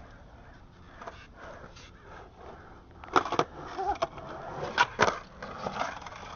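Skateboard rolling, with two pairs of sharp deck clacks, the first pair about three seconds in and the second about a second and a half later.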